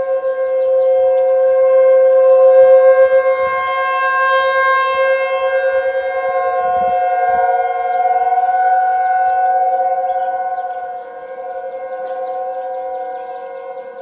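Outdoor civil defense warning siren sounding a steady chord-like tone in a siren test. Its loudness swells to a peak about three seconds in, dips near the end and rises again.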